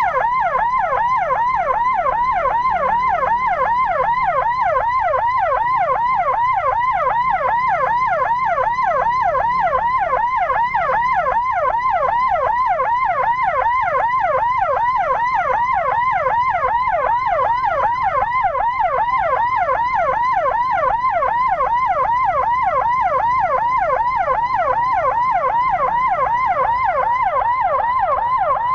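Electronic emergency siren sounding a fast, unbroken yelp of about three pitch sweeps a second, over a low road rumble.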